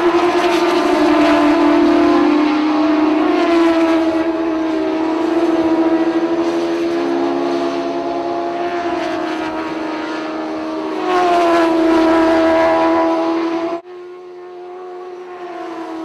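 Several shortcar racing cars' high-revving motorcycle engines running hard as a pack passes, their pitch shifting up and down with throttle and gear changes. About fourteen seconds in the sound drops suddenly to a fainter, more distant engine sound.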